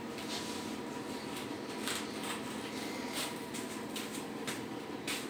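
Steady room hum with a faint constant tone, and scattered light clicks and taps.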